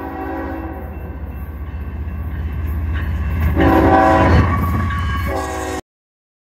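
Norfolk Southern diesel freight locomotive approaching and passing close by, its engine rumbling low while its multi-chime air horn sounds a chord at the start, again loudest about three and a half seconds in, and briefly near the end. The sound cuts off suddenly just before the end.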